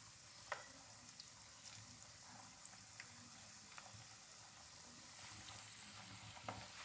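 Chebakia dough deep-frying in hot oil in a wire basket. A faint, steady sizzle is dotted with small scattered pops and crackles.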